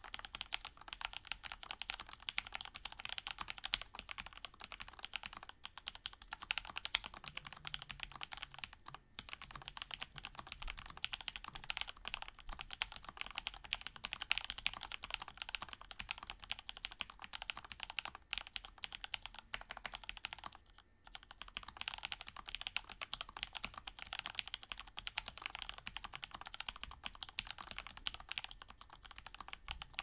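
Fast, continuous typing on a stacked acrylic Alice-layout mechanical keyboard with lubed FEI Matcha switches and GMK doubleshot ABS keycaps: a dense stream of keystroke clacks. The typing pauses briefly about two-thirds of the way through, then resumes.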